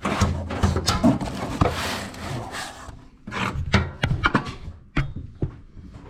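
Hand work on a rear axle and drum brake assembly: scraping and rubbing of metal parts for about three seconds, then several separate sharp knocks and clicks.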